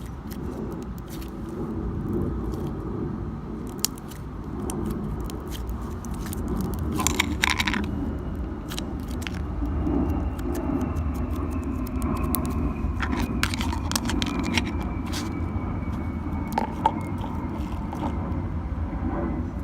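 Store-bought slime being squeezed and stretched by hand, giving irregular small clicks and pops, with a cluster of them about seven seconds in, over a steady low rumble.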